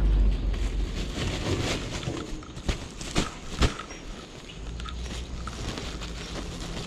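A woven plastic sack rustling and crinkling as it is grabbed and swung, with three sharp knocks about half a second apart a little before the middle.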